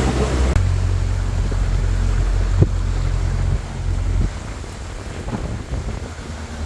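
Tour boat motoring along the river, with a low engine and wind rumble on the microphone that drops off about four seconds in; one short knock partway through.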